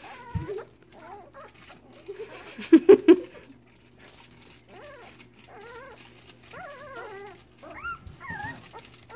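A litter of Vizsla puppies whining and whimpering, many short wavering cries overlapping one another. About three seconds in comes a brief burst of louder yaps, and a soft thump sounds near the start.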